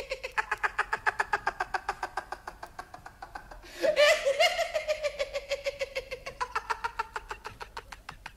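A high-pitched cartoon voice laughing in long runs of rapid, even 'hee-hee-hee' pulses, the pitch slowly sinking through each run. A second, louder run of laughter starts a little before four seconds in and trails off near the end.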